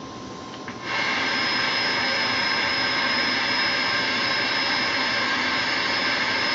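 CB radio static: a loud, steady hiss with a thin high whistle in it that cuts in suddenly about a second in as the squelch opens on an incoming signal.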